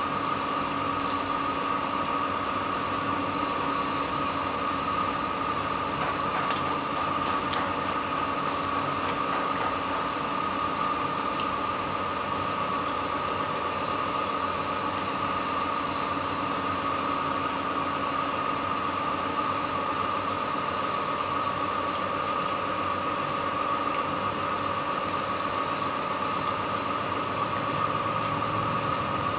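A steady mechanical hum with a constant high whine in it, unchanging throughout, like a running motor.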